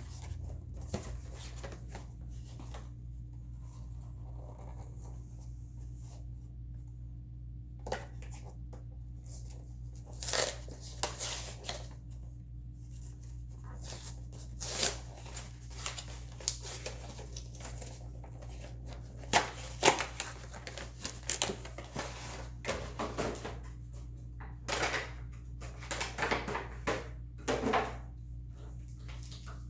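Packaging of a sealed Pokémon card box being torn open and handled: irregular bursts of tearing and crinkling, with pauses between them, over a steady low hum.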